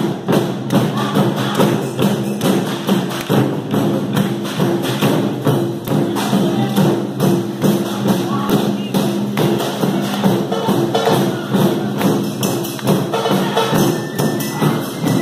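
Taiko drum ensemble, including shoulder-slung barrel drums, playing a fast, driving rhythm with many drums struck together, over a steady pitched tone.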